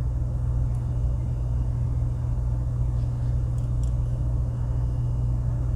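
Steady low hum and rumble, with a few faint light clicks.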